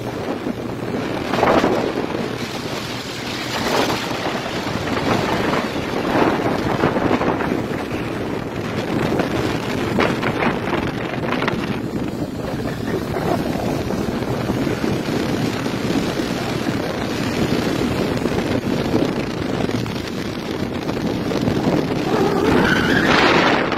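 River boat's engine running steadily, with wind gusting on the microphone.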